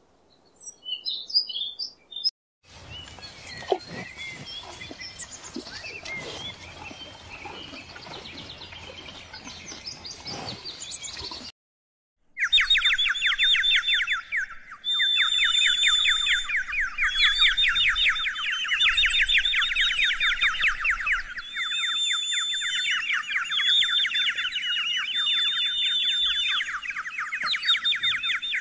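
A few short high chirps, then a stretch of mixed outdoor noise, then, from about twelve seconds in, a loud, dense, fast chirping chorus with a high steady whistle that comes and goes.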